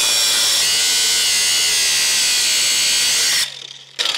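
Cordless angle grinder cutting through a seized, rusted bolt on a drum-brake wheel cylinder, with a steady high-pitched whine. It stops about three and a half seconds in and briefly starts again near the end.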